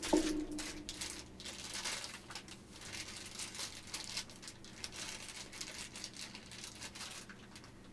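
Small clear plastic bag crinkling and rustling as it is handled and worked open by hand, in irregular crackles. Right at the start a sharp knock with a brief ringing tone.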